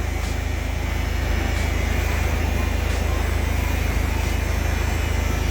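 Truck engine idling steadily, a continuous low hum with an even pulse.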